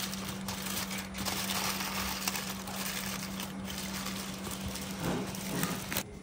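Food sizzling and crackling in hot oil in a pan, with a steady low hum underneath; the sizzle cuts off sharply just before the end.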